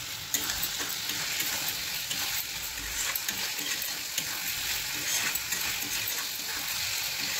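Potato wedges frying in oily onion-tomato masala in a kadai, sizzling steadily while a metal spatula stirs them, with light scrapes and clicks against the pan.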